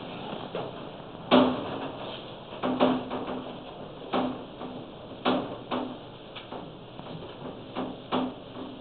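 A chalkboard being wiped clean with a cloth: a run of about eight sharp knocks as the board panel knocks and rattles under the strokes, with the cloth rubbing between them.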